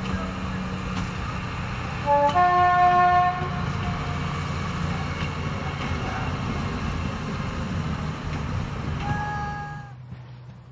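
Preserved SNCV metre-gauge railcar AR 133, powered by a diesel engine taken from a US Sherman tank, running along the line with a steady low engine and wheel noise. It sounds its horn: a long blast about two seconds in and a shorter one near the end.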